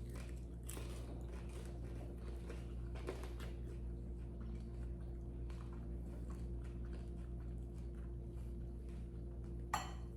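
Faint chewing of air-fried dumplings, with soft scattered mouth clicks and a sharper click near the end, over a steady low hum.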